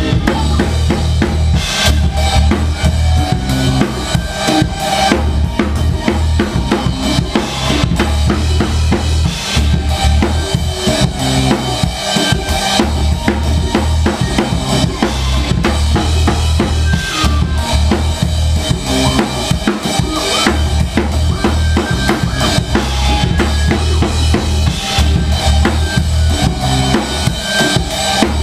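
A live rock band playing loudly: drum kit, electric bass guitar and keyboards, with the drums most prominent.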